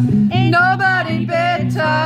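Live acoustic music: a Gibson acoustic guitar played over a steady, evenly pulsing low bass line, with a voice singing short phrases.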